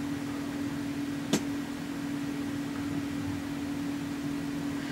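Steady machine hum from the mini milling machine, holding one even pitch, with a single sharp click about a second and a half in.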